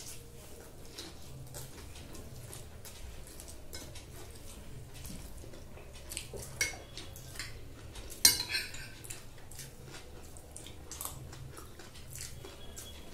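Metal spoons and forks clinking and scraping against glass plates while two people eat chow mein noodles. The clinks are scattered and light, with a sharp one about eight seconds in and a smaller one at about six and a half.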